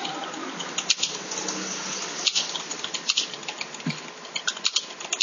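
Computer keyboard typing: quick, irregular key clicks in small flurries, over a steady background hiss.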